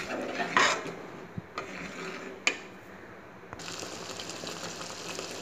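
A few scattered light clicks and knocks over a faint steady hum, the sharpest about half a second and two and a half seconds in.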